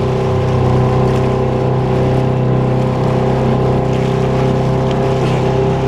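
Small boat's outboard motor running at a steady speed, a constant even drone.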